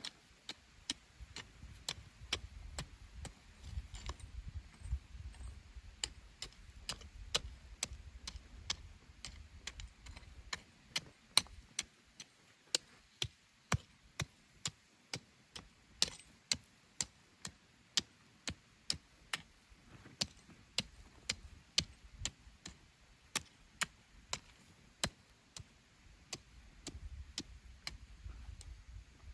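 Sharp, even taps or clicks repeating about twice a second, with a faint low rumble underneath at times.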